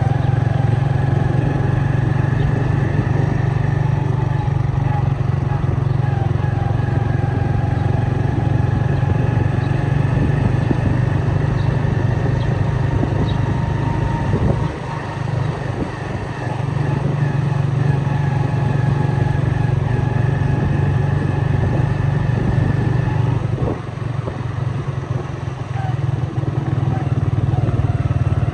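A motor vehicle's engine running steadily close to the microphone, easing off briefly twice, about halfway through and again near the end.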